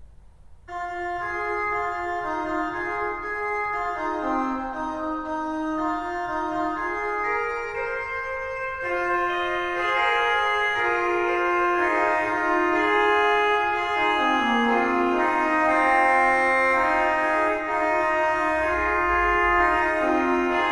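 Organ music: slow, sustained chords, starting about a second in and growing fuller and louder partway through.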